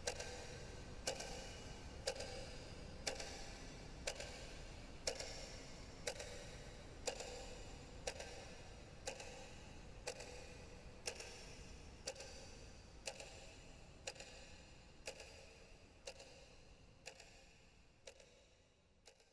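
A clock ticking steadily, about once a second, over a low rumbling hum, fading away near the end.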